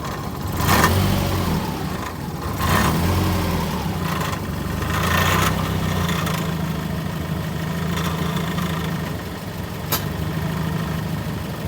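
Subaru Legacy's boxer engine idling, blipped three times in the first six seconds, with the rattling that comes from a loose muffler heat shield rather than the clutch. A single sharp click near the end.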